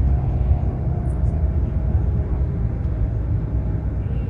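Scania K360 bus engine running with a steady low drone.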